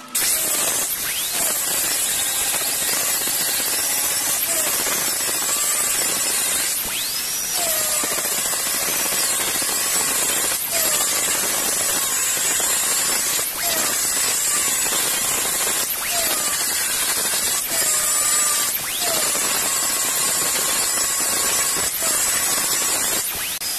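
Angle grinder running steadily under load, its disc grinding the forged steel head of a tomahawk made from a ball peen hammer. It starts abruptly at the outset, with its pitch wavering slightly every few seconds.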